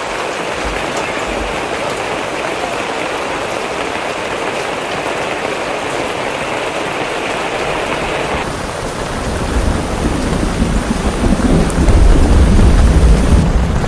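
Heavy rain falling in a steady hiss; about two-thirds of the way in, a deep rumble of thunder builds and is loudest near the end.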